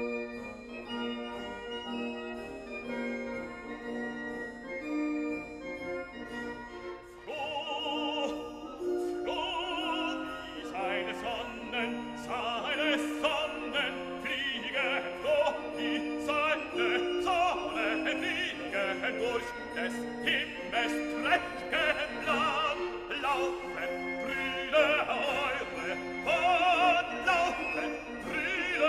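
Background classical music: held keyboard notes, then an operatic singing voice with vibrato over orchestral accompaniment from about seven seconds in.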